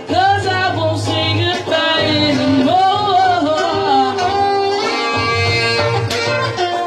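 Live band music: a woman sings lead into a microphone, holding and bending notes over the band's steady accompaniment.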